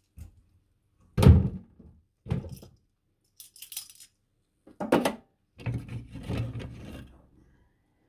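Metal kitchen utensils knocking and clattering on a wooden cutting board: a few separate knocks, the loudest about a second in, then a longer scraping rustle near the end.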